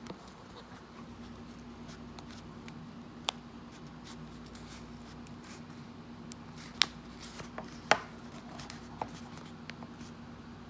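Fingers rubbing and clicking a replacement leather ear cushion against the plastic ear cup of Bose QuietComfort 35 headphones while pressing its edge under the rim. There are a few sharp clicks, the loudest about 7 and 8 seconds in, over a faint steady hum.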